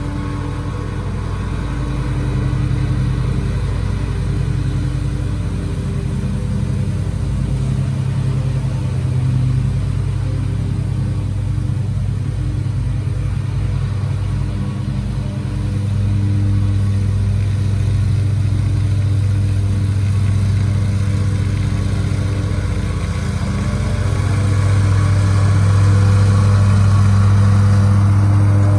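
Ferris stand-on zero-turn mower's engine running steadily under mowing load. It fades as the mower drives off, then grows louder as it comes back close near the end.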